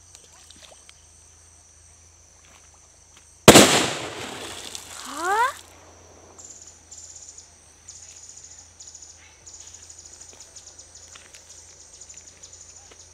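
Sutli bomb (jute-string-wrapped firecracker) exploding in a pond: one sharp, loud bang about three and a half seconds in, followed by about two seconds of rushing noise as the thrown-up water falls back.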